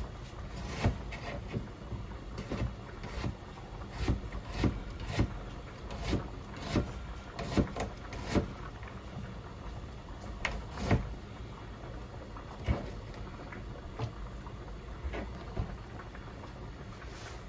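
Kitchen preparation sounds: irregular knocks and clicks of utensils and objects being handled, a few each second and thinning out toward the end, over a steady low hum.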